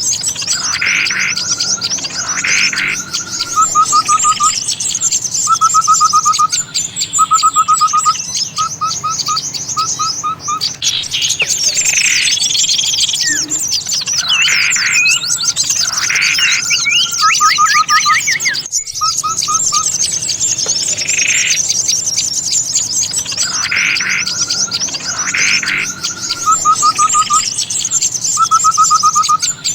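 A bird-trapping lure recording of many small songbirds calling at once: a constant high chatter of chirps, with repeated short rapid trills and louder calls over it. The pattern breaks off briefly about two-thirds through and starts over, as a looped lure track does.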